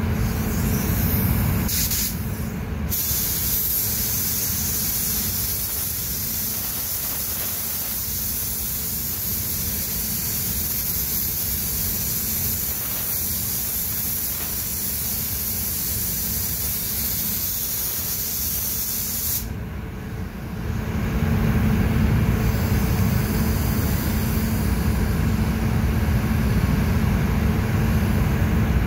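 Paint spray gun hissing steadily as it lays a pearl coat over a car's body. The hiss breaks off briefly about two-thirds of the way through, then comes back deeper and louder.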